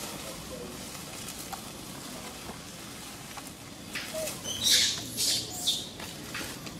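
A quick run of four or five sharp, high-pitched animal squeaks about four seconds in, lasting under two seconds. Beneath them is a steady outdoor background hiss.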